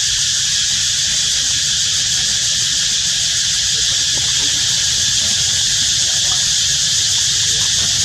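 Insects buzzing as a steady high-pitched chorus, with a low rumble underneath.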